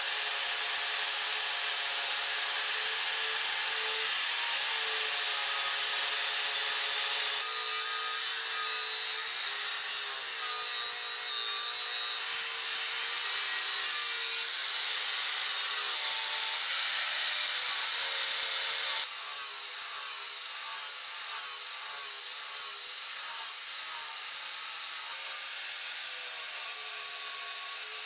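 MIG welder arc crackling and hissing steadily as a thick bead is laid on steel, in stretches joined by abrupt cuts, with the level stepping down about a third of the way in and again about two-thirds in.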